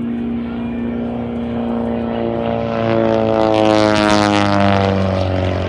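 Pitts S-1 aerobatic biplane's 180-horsepower engine and propeller making a pass, growing louder to a peak about four seconds in, its pitch falling steadily as it goes by.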